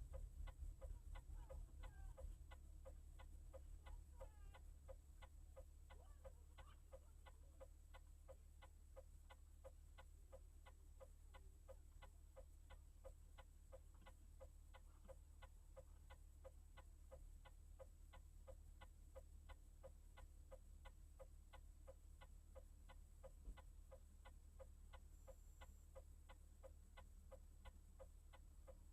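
Faint, even ticking, about two ticks a second, over a steady low hum.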